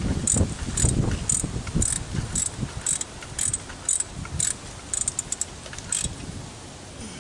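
Hand socket ratchet clicking as a bolt is run in, about two clicks a second, with a quicker run of clicks about five seconds in.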